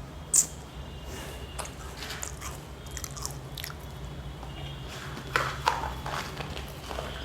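Someone biting and chewing crisp chocolate-filled wafer pillows (Gone Mad Choco Pillows) close to the microphone, with a few sharp crunches: one shortly after the start and a cluster near the end.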